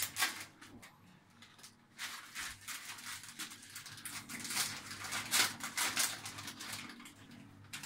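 Wrapping paper being torn and crinkled by hand as a small present is unwrapped: an irregular run of rustles and rips, sparse at first and busier from about two seconds in.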